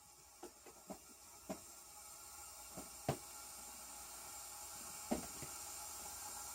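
Argentine boa hissing while feeding: one long, steady, airy exhale that builds over the first few seconds and then holds, a defensive hiss at being watched while she eats. A few soft clicks sound over it.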